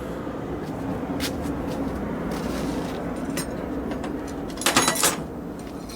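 KamAZ 65225 V8 diesel engine running steadily with a low hum, with a short metallic clatter of clicks about five seconds in.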